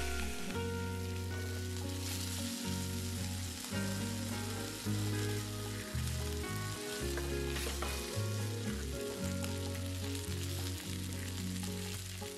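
Lamb shanks sizzling as they brown in hot olive oil in a frying pan, turned with metal tongs. Background music with a changing bassline plays underneath.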